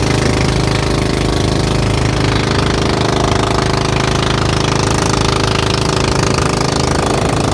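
An outrigger bangka's engine running steadily under way, a loud, rapid, even chugging.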